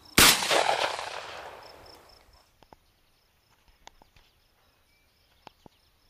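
A single shotgun shot, sudden and loud, with its report rolling away over about two seconds.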